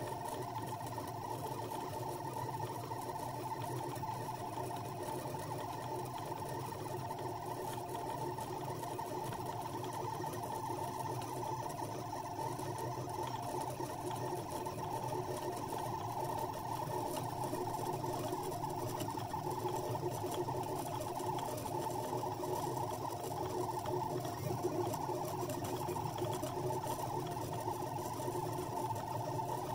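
CNC pen-drawing machine's stepper motors whirring steadily while the pen traces a continuous-line drawing, a constant hum with a few steady tones that does not stop or change.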